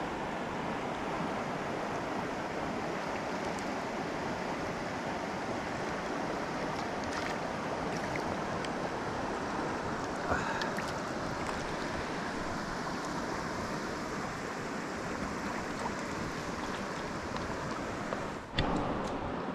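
Steady rushing noise of a flowing river, with a short knock about ten seconds in and another near the end.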